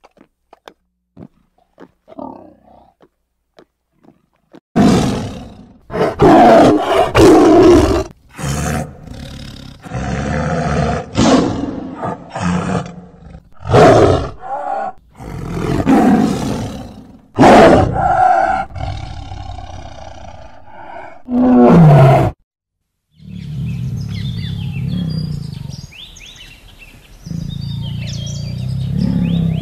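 A tiger growling and roaring over food in a long string of loud calls. Faint clicks come before the calls start, and quieter low growls with faint bird chirps follow near the end.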